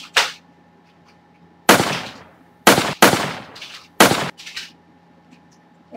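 A gunshot sound effect fired five times, at uneven intervals, each shot a sharp bang with a short fading tail, two of them in quick succession near the middle.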